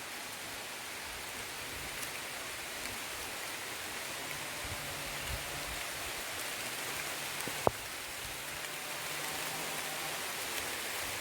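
A steady, even hiss of outdoor noise, with a single sharp click about two-thirds of the way through and a faint low hum in the middle.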